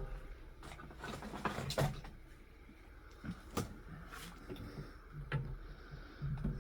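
Scattered light clicks, taps and a brief rustle from parts and tools being handled on a workbench, over a faint steady low hum.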